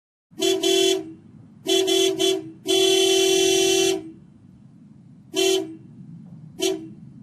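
Vehicle horn honking in a series of blasts of one steady pitch: short honks, a long one held over a second, then two short honks, over steady low background noise.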